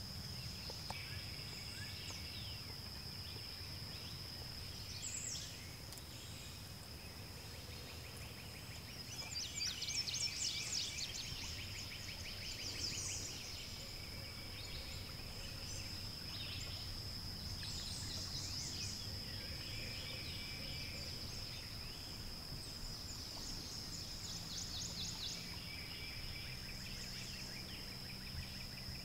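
Outdoor ambience: a steady high-pitched insect drone, with birds singing in short bursts of rapid notes, the loudest about ten seconds in.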